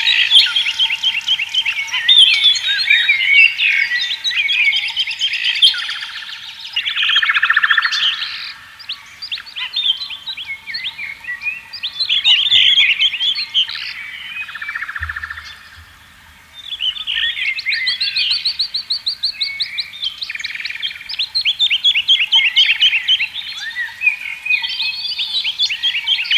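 Several songbirds singing and chirping at once, fast trills and rapid call series overlapping, with brief lulls between bouts. A faint steady high hum runs underneath.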